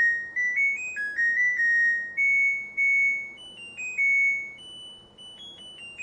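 Washing machine's buzzer playing its end-of-cycle tune: a string of pure, beep-like notes stepping up and down in pitch, quieter for the last second and a half.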